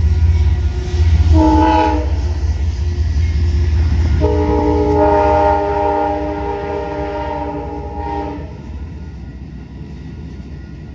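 Amtrak passenger train passing with a heavy rumble and sounding its multi-note horn: one short blast about a second in, then a long blast of about four seconds. The rumble dies away after the long blast ends.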